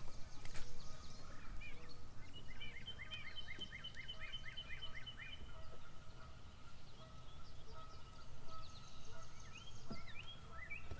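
A bird singing a rapid run of about ten repeated down-slurred whistled notes, about three a second, then a shorter run of similar notes near the end, over a steady low background hum.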